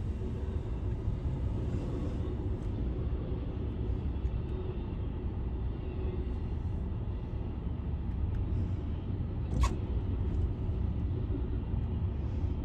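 Steady low vehicle rumble, with one sharp click about ten seconds in.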